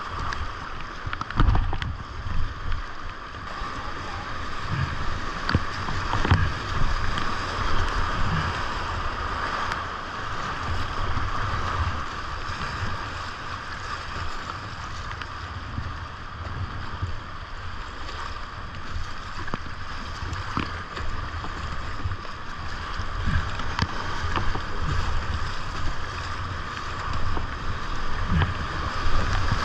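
Whitewater rapids rushing around a kayak on a creek running high at about 1,600 cfs, with scattered splashes of paddle strokes. Wind buffets the microphone with a low rumble.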